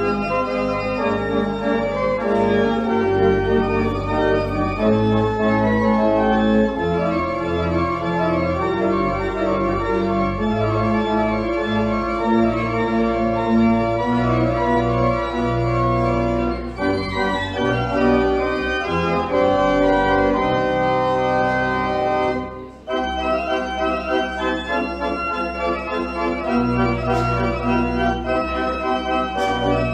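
Church pipe organ playing a sustained, full-chorded piece with deep bass notes under the chords; the sound briefly drops away about 23 seconds in before the playing resumes.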